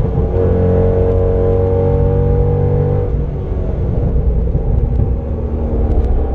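The 2007 Corvette C6's 6.0-litre LS2 V8 running under way on track, heard from inside the cabin, with road noise beneath it. The steady engine tones fall away about three seconds in, leaving a lower running sound.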